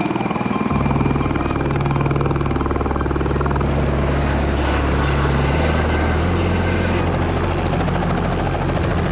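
Helicopters running close by as they hover low to land: first an Airbus H130 turbine helicopter, then, after a change about seven seconds in, a piston-engined Robinson R44 with a rapid, regular rotor beat.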